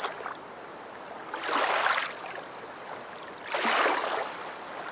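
Rushing water sound, swelling up twice about two seconds apart, like surf washing in.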